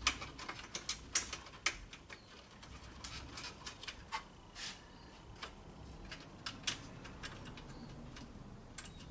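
Faint, irregular clicks, taps and short scrapes of small 10 mm bolts and fingers against the plastic condenser fan shroud as the bolts are started by hand.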